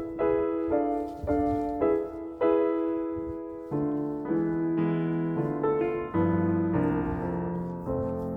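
Background piano music: a gentle melody of repeated notes, about two a second, each fading after it is struck, with lower notes joining about halfway through.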